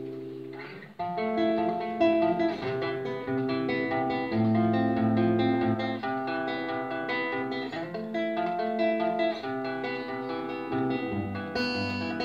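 Solo acoustic guitar: a chord rings and fades, then about a second in the guitar resumes with a steady run of picked notes and chords.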